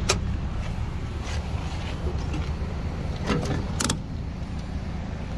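Sharp click of a 2008 Honda CR-V's fuel door release lever being pulled, then, about three seconds later, a quick cluster of metallic clicks and rattles as the sprung fuel filler door is handled and swung open by hand. A steady low rumble runs underneath.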